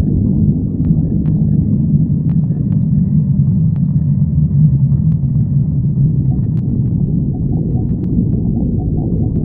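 Human stomach growling: one long, low, continuous rumble with a pitched drone that swells about halfway through, with faint scattered clicks.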